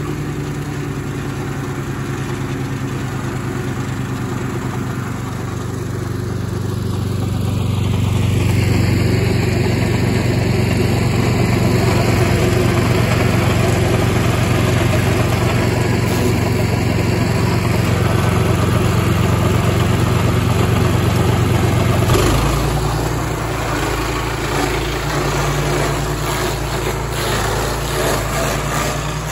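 Walk-behind petrol stump grinder running, its engine working steadily as the cutter wheel grinds into the stump and soil. The sound grows louder about a quarter of the way in, then drops back to a lower, steadier level about three quarters of the way through.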